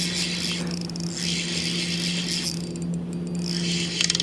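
Electric trolling motor humming steadily, holding the bass boat in place, with a light hiss over it. A quick run of clicks comes near the end as the rod is swept up in a hook set.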